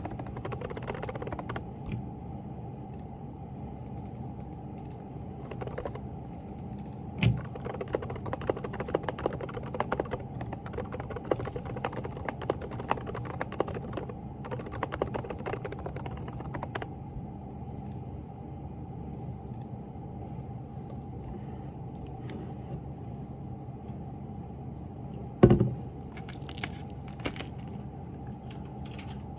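Typing on a Groovestone GV10 mechanical keyboard with hand-lubed silent Coral 38 g switches: quick muted key clicks, busiest from about seven to seventeen seconds in. There is one louder knock near the end, over a steady low hum.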